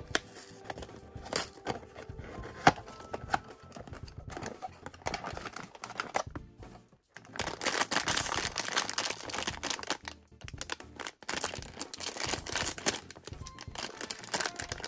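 A cardboard blind box being opened, with scattered clicks and scrapes of the flaps and packing. From about seven seconds in, the plastic blind bag taken from it crinkles steadily and more loudly as it is handled and torn open.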